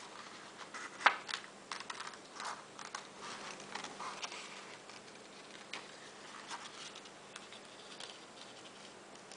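Scissors cutting through a sheet of drawing paper: short, irregular snips of the blades with the paper rustling, one sharper click about a second in.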